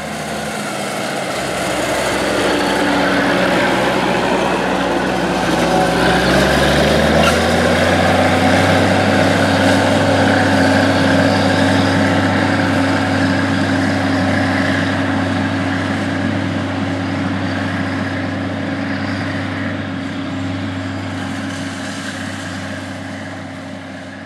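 Minneapolis-Moline G-1050 tractor's diesel engine running steadily under load while pulling a hay rake. Its pitch rises about seven seconds in and then holds, and it fades near the end as the tractor pulls away.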